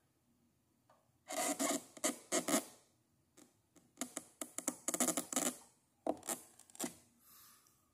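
Scraping and rubbing handling noise in three bouts of quick strokes as fan parts, including a long metal rod, are worked close to the microphone.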